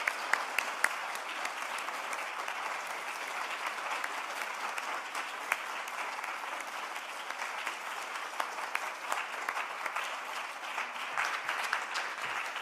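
Audience applauding: a steady, sustained round of clapping from many hands.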